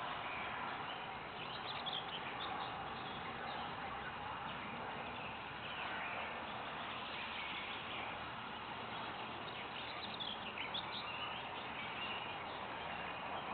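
Birds calling in short chirps, in two brief clusters about two seconds in and about ten seconds in, over a steady background hiss.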